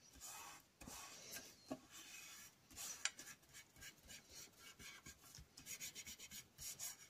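Hands rubbing and smoothing a glued paper image down onto card, pushing out towards the edges to spread the glue beneath and stick the edges down: faint, irregular papery rubbing with a few small clicks.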